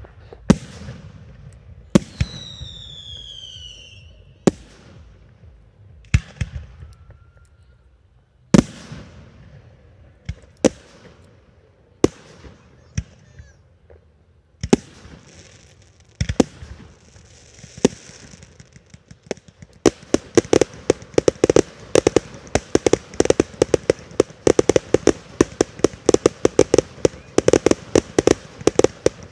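Fireworks display: aerial shells bursting with sharp bangs every second or two, one with a whistle falling in pitch about two seconds in. From about twenty seconds in, a dense, rapid crackling of many small reports.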